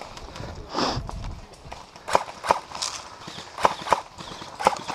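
Airsoft guns firing: sharp cracks that come in pairs, a pair about every second and a half, starting about two seconds in. A brief rushing noise comes about a second in.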